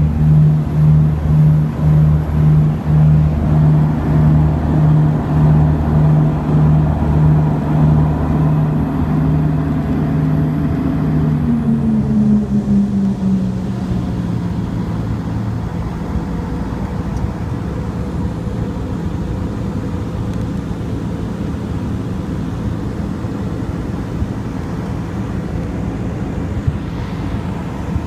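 Turboprop engines and propellers heard from inside the cabin during the landing rollout, a low drone throbbing about twice a second. About twelve seconds in the tone drops in pitch as power comes back, and the throbbing gives way to a steadier, slightly quieter hum.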